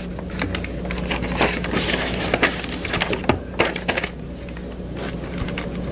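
Irregular clicks and rustling for about four seconds, a few louder ones among them, over a steady low hum on the recording.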